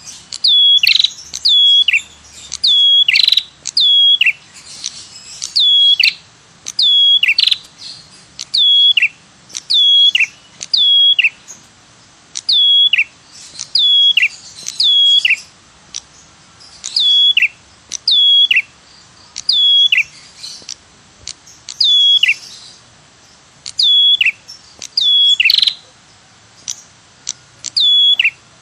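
Ashy tailorbird (prenjak kepala merah) giving its loud 'tirr tiirr' lure call: sharp notes that drop steeply in pitch, mostly in quick pairs, repeated over and over about once a second.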